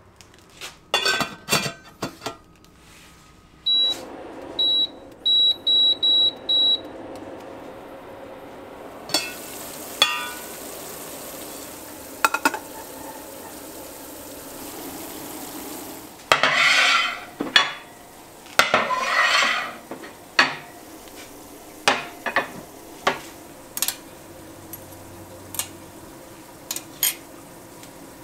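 Metal pots and utensils clanking, knocking and scraping during hard-candy making. A run of about five short electronic beeps comes a few seconds in, and a steady hiss runs through the middle.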